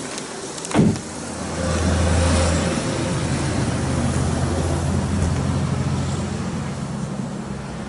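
Vauxhall Cascada's 2-litre CDTI diesel engine being started: a thump about a second in, then the engine catches, runs up briefly and settles into a steady idle.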